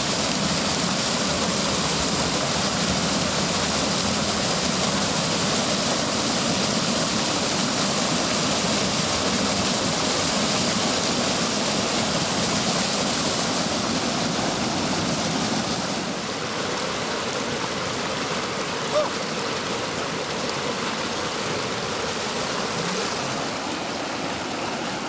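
Whitewater rushing and churning over rock in a river rapid: a steady, loud rush of water that eases a little about two-thirds of the way through.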